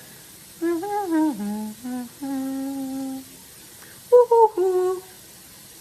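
A woman humming a short wordless tune in held, sliding notes, in two phrases with a pause of about a second between them.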